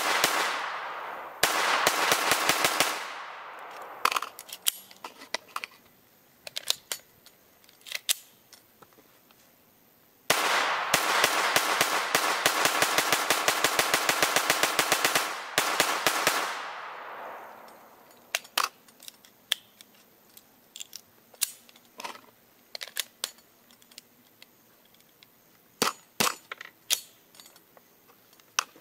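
AR-15 rifle in 5.56/.223 with a lightweight bolt carrier group, fired in rapid semi-automatic strings: a short string at the start and a longer one of about five seconds near the middle. Between and after the strings come scattered quieter clicks and clacks of the rifle being handled.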